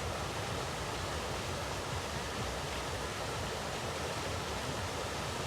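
Steady, even rushing noise with no beat or pitch, constant in level throughout.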